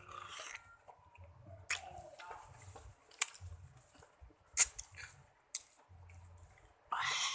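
Short, sharp coughs, four of them spaced about a second apart, then a longer cough near the end.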